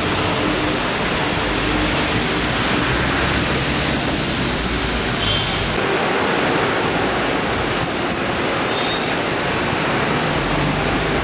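Steady hiss of city traffic on a wet street: tyres swishing on rain-soaked tarmac as double-decker buses and taxis pass.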